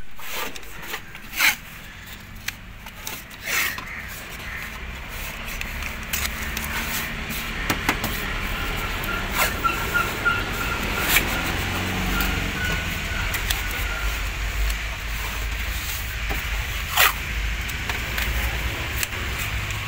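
Masking tape pulled off the roll and pressed onto a scooter's plastic panels, with paper rustling and several short, sharp rips. A low rumble comes up about halfway through.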